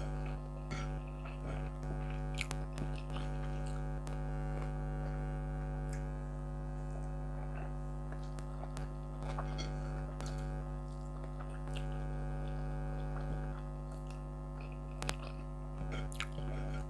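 Steady hum of a room air conditioner left running, heard as several even, unchanging tones, with close chewing sounds and scattered short clicks from a person eating rice and fried fish.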